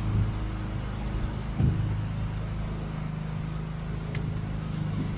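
A steady low machine hum with several even tones. A single dull thump comes about a second and a half in.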